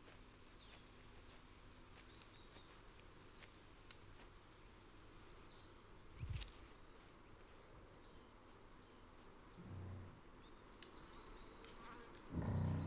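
Faint field ambience. A steady high insect trill runs for the first six seconds or so, then gives way to scattered short high chirps. A soft low thump comes about six seconds in, and a louder low rumble comes just before the end.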